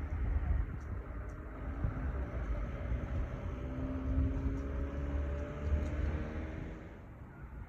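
Low rumble of a passing motor vehicle, with a steady engine tone that swells through the middle and fades away near the end. A few faint clicks sound over it.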